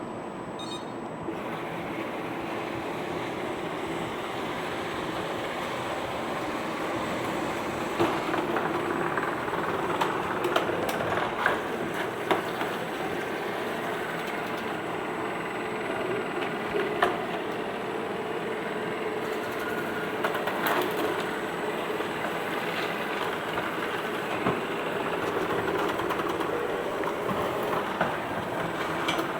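CHUWI ILIFE V7S robot vacuum cleaner running: a steady whir of its suction motor and brushes, with a few sharp clicks and knocks scattered through.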